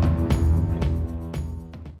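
Background music with a steady beat about twice a second over held tones, fading out near the end.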